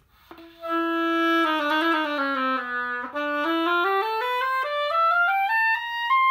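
An oboe played on a freshly scraped and clipped reed to test it: one held note, then a scale stepping down into the low register and climbing note by note about two octaves, turning down near the end. The player judges the reed better and more well-rounded for the work.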